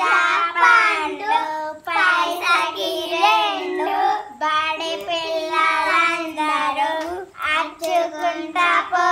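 Young girls singing a chanted children's game song, held notes in short repeated phrases.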